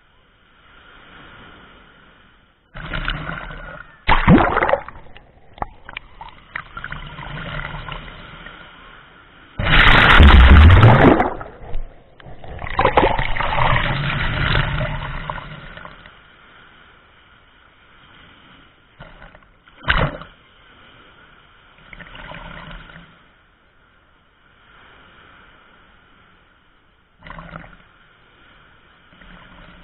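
Ocean surf washing over a camera sitting at the waterline: irregular rushing and sloshing of breaking waves, with sharp splashes as water hits the camera. The loudest, fullest surge comes about ten seconds in and is followed by a long churning wash; between waves there is only a low hiss.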